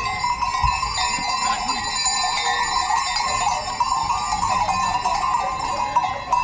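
A herd of goats on the move, many neck bells clanking and jingling together without a break.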